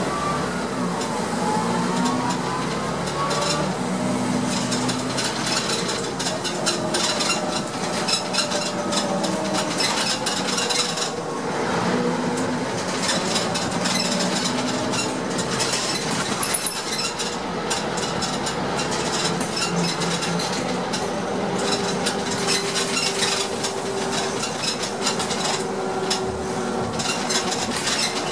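Cabin noise of a Heuliez GX 417 articulated city bus on the move: the drivetrain runs steadily, with a whine that shifts in pitch in the first few seconds, amid frequent rattles and knocks from the interior fittings.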